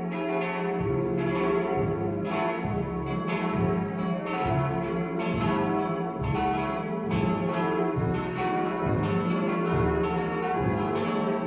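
Several church bells ringing together in a continuous peal, their strikes overlapping, tolling for a funeral.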